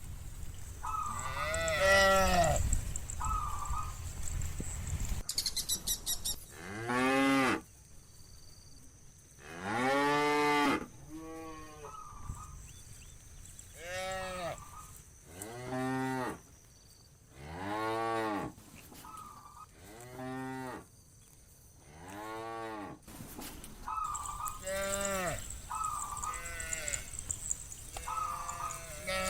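A herd of cattle mooing, about ten long calls a few seconds apart, each rising and then falling in pitch. Shorter, higher-pitched calls come between them.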